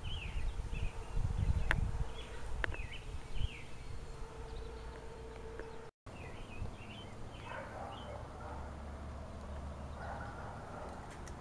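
Outdoor ambience: birds chirping in short, scattered calls over a low rumble, loudest a second or two in.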